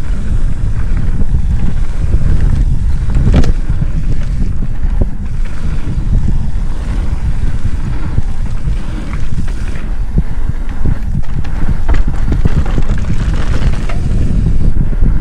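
Wind buffeting a camera microphone on a mountain bike riding downhill on a dirt trail, with many small knocks and rattles from the bike over the ground and a sharper knock about three and a half seconds in.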